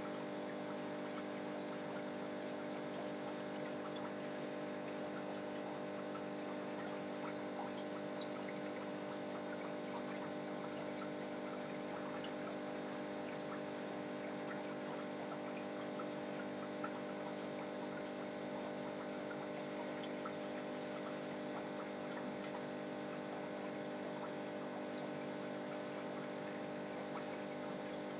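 Aquarium filter running: a steady hum with water trickling and fine bubbly crackles.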